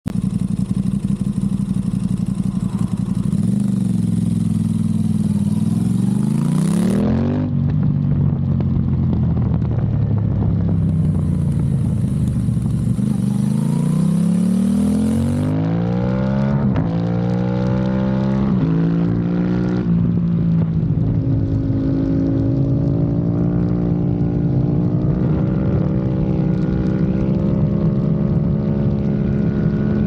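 Aprilia RS660's 659 cc parallel-twin engine through a MIVV Delta Race exhaust, accelerating through the gears: the pitch climbs and drops sharply at each upshift, about four times. It then settles into a steadier run, pitch gently rising and falling.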